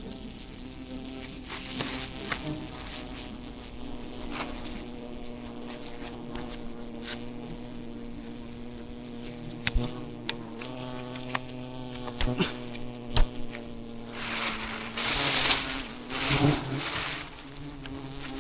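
A swarm of wild honeybees buzzing around their nest as one steady, droning hum. A few sharp clicks cut through it in the middle, and two loud rustling bursts come near the end.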